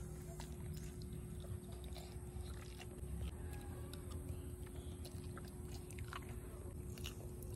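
A child chewing a mouthful of rice and fish, with a few faint clicks of a spoon and fork against a ceramic plate.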